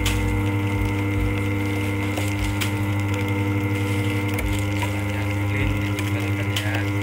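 Continuous band sealer running with a steady hum while it heat-seals plastic bags, with a few light clicks along the way.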